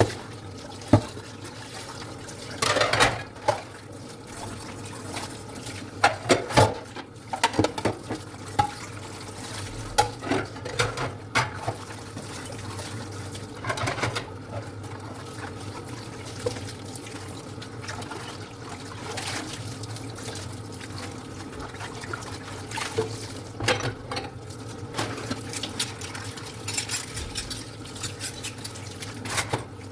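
Dishes being washed by hand at a sink: a steady run of water with the clink and knock of plates, cups and cutlery against each other and the sink, in irregular clusters.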